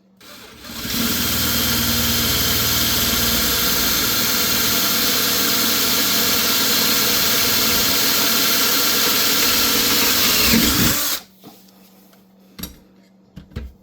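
Electric drill boring a hole through the metal leg of a Brent pottery wheel. It runs steadily for about ten seconds and then stops suddenly, with a couple of faint clicks after.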